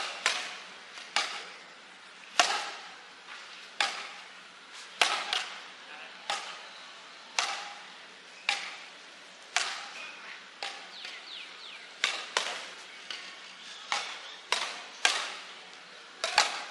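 Badminton rally: racket strings striking a shuttlecock back and forth, sharp crisp hits about once a second.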